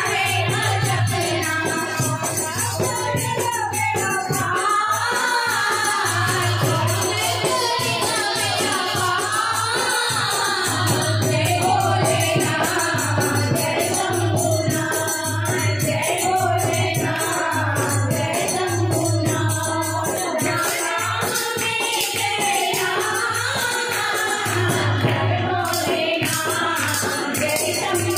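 Group of women singing a Hindu devotional bhajan to Shiva, led by a solo voice with the others joining, amplified through microphones. A steady beat of hand percussion keeps time.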